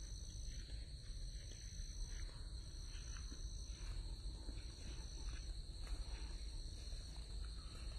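Insects calling in garden greenery: one steady high drone throughout, and a second, higher call that sounds for about a second at a time and repeats every second and a half or so, over a low rumble.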